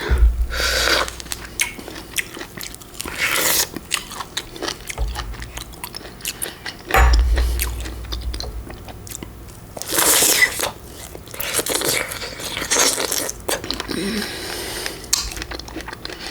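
Close-miked eating of fresh fruit: biting, wet crunching and chewing with many small smacks and clicks. There are a few low thumps near the start and around the middle.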